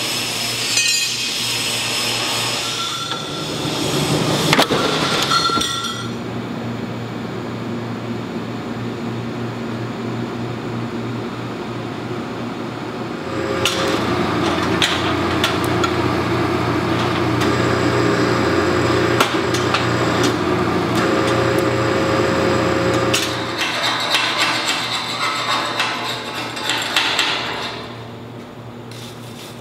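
Metal fabrication shop work noise: a steady electrical machine hum with metal clanks and hammer-like knocks, louder and busier in the middle stretch, quieting near the end.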